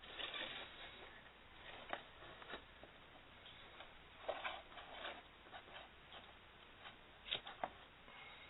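Hands handling a small plastic emergency lamp: scattered light clicks and brief rustles, with two sharper clicks near the end.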